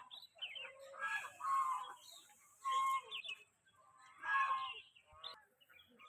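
Domestic fowl calling: a handful of short, harsh pitched calls, each about half a second, repeated every second or so.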